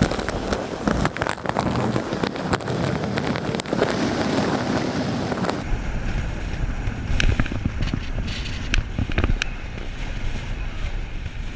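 Wind rushing over a moving camera's microphone, with vehicle noise and scattered clicks. About six seconds in it cuts abruptly to quieter rumbling noise with occasional sharp ticks.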